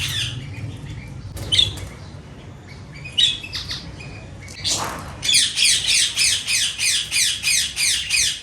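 Caged budgerigars chirping now and then, then after a short whoosh about five seconds in, a bird breaks into a rapid run of harsh squawks, about four a second.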